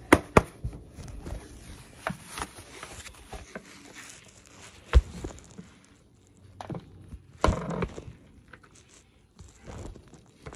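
Handling noise of the recording device being set on a small cushion stand and adjusted: two sharp knocks at the start, another about halfway through, and scraping and rustling in between.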